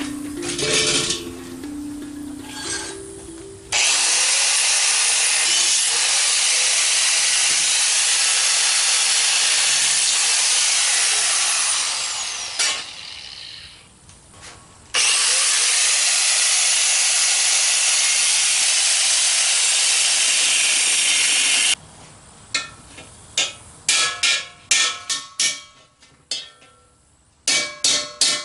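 Angle grinder with a cut-off wheel cutting into the steel of a 20-pound propane tank, in two long steady runs with a short pause and spin-down between them. In the last few seconds comes a quick series of sharp hammer taps on the tank.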